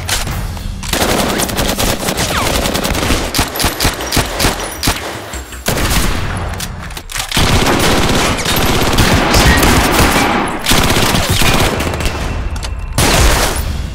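Rapid automatic machine-gun fire, dense overlapping shots over a low rumble. It changes abruptly every few seconds as one burst gives way to the next.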